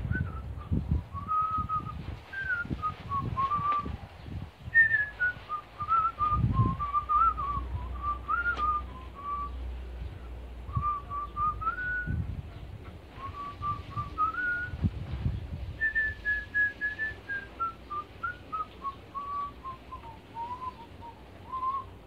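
A person whistling a tune, a single clear note stepping up and down in a melody with short pauses. A few dull low knocks come in under it.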